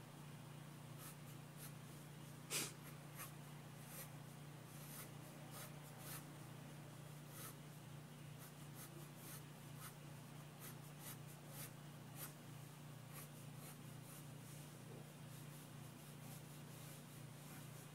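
Pencil scratching on paper in short sketching strokes, with one louder stroke about two and a half seconds in, over a faint steady low hum.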